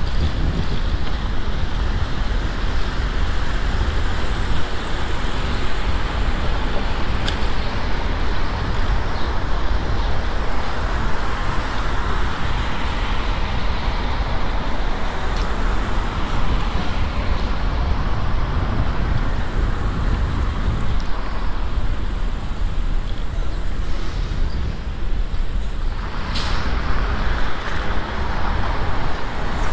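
Steady city street traffic heard from a moving bicycle: cars running past and road noise over a low rumble. Near the end the traffic grows louder.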